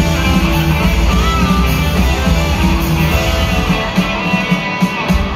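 Live rock band playing in an arena, with electric guitar to the fore, heard from among the crowd. The deepest bass thins out about four seconds in.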